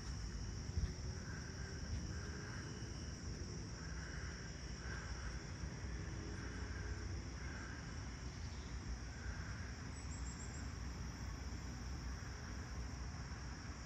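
Steady high-pitched chorus of crickets, with a lower chirp repeating at irregular intervals of roughly a second, over a low steady rumble.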